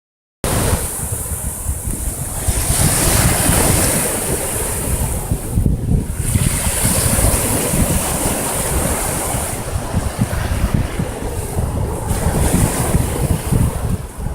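Sea waves breaking and washing on the shore in rising and falling surges, with wind buffeting the microphone.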